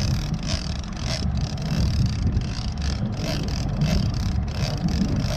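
Wind buffeting a GoPro microphone on a boat at sea, over a steady, uneven low rumble.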